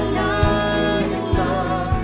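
Young singers performing a musical-theatre song together, several voices in harmony holding long notes over a steady low accompaniment.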